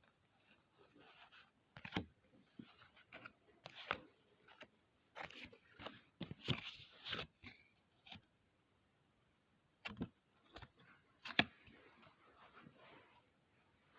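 Faint handling of a trading-card booster pack and its cards: irregular light clicks, scrapes and short rustles of card stock and foil wrapper, busiest a few seconds in.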